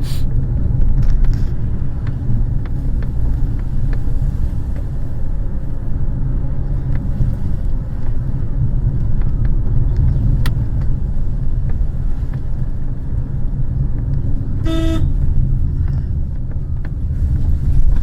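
Car running along the road, heard from inside: a steady low engine and road rumble with occasional small clicks, and a short car horn toot about fifteen seconds in.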